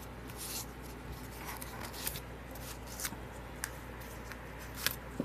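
Hands handling a paper card: soft rustling with a few short sharp taps and clicks of cardstock, over a steady low hum.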